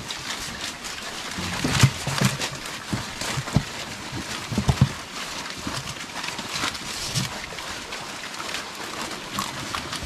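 Young pigs feeding on fresh green leaves: several short low grunts, most of them in the first five seconds, over a steady patter of chewing and leaf rustling.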